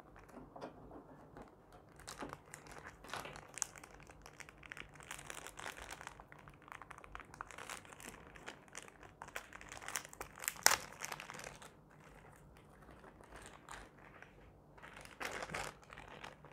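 Clear plastic bag crinkling as a small remote control is handled and unwrapped from it. The crackles come irregularly, with one sharp, louder crackle a little past the middle.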